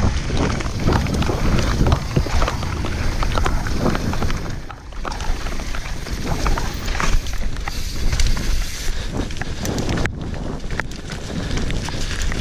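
Mountain bike descending a rough, wet dirt-and-gravel trail at speed, heard through an action camera's microphone: wind buffeting the mic with a heavy low rumble, over the clatter and knocks of the tyres and bike on stones and bumps. A brief lull about five seconds in.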